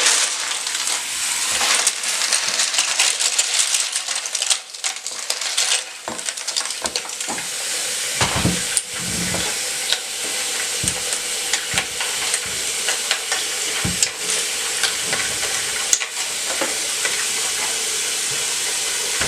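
Hot water running steadily from a tap into a sink of soapy water, with scattered light clicks and knocks.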